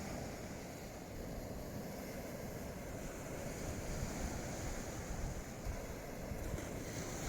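Sea waves washing on the beach with wind on the microphone: a steady, even rush.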